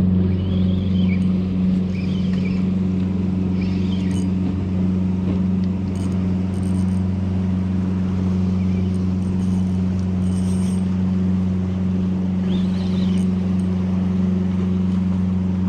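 Steady low engine drone from a motorboat running in the inlet, with a few faint short chirps and clicks over it.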